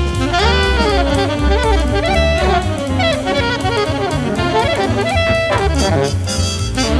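Big band jazz: an alto saxophone plays fast, winding solo lines over bass and drum kit, with the saxophone and trumpet sections playing backing figures.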